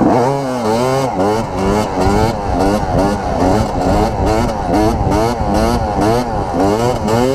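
Dirt bike engine revving up and falling back over and over, about twice a second, as the rider works the throttle through a wheelie.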